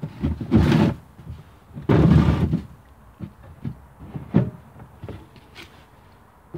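Hollow plastic water butt and its plastic stand bumping and scraping as they are handled and set in place: two longer, loud scraping thumps in the first few seconds, then a few lighter knocks.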